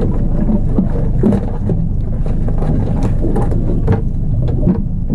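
Small boat's outboard motor running steadily, with many small knocks and rattles over it.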